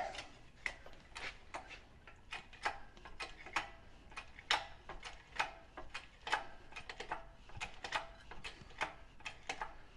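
Light metallic clicking from hand work on a tractor transmission: sharp, irregular clicks, about two or three a second.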